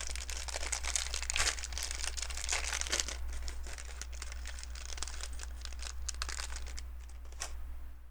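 Small plastic LEGO pieces being handled and picked through: a busy run of light clicks and crinkly rustling that thins out near the end.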